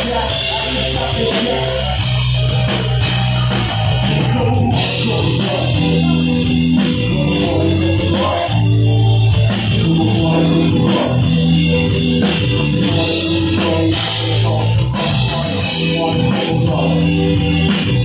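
Rock band playing live, with electric guitar, drum kit and a male lead vocal.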